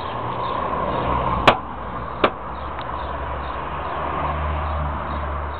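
A Spax wood screw being turned by hand with a screwdriver into a car's plastic wheel-arch trim: two sharp clicks about three-quarters of a second apart, about a second and a half in, over a steady hiss and low hum.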